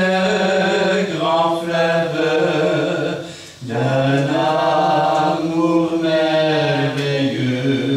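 A French hymn sung slowly, each syllable held in long sustained notes, with a short break between phrases about halfway through.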